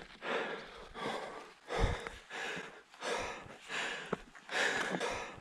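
A climber breathing hard and fast in short, regular breaths while scrambling up steep broken rock, with a few light knocks against the rock.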